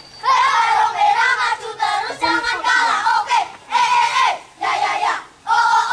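A group of children chanting and singing a scout cheer (yel-yel) together in short phrases with brief pauses between them.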